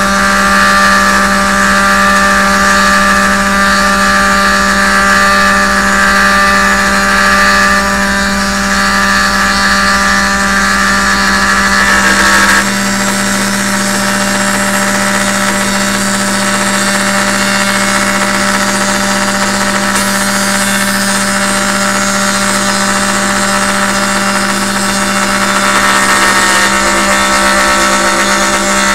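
CNC router spindle running steadily while its bit cuts a hexagonal coaster pocket into wood at a slow feed. The sound changes abruptly about halfway through and again shortly before the end.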